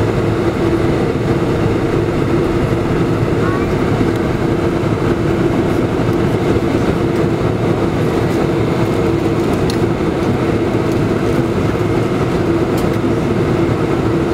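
Airliner jet engines and cabin noise heard from inside the cabin while the plane taxis after landing: a steady hum with a constant drone in two low tones.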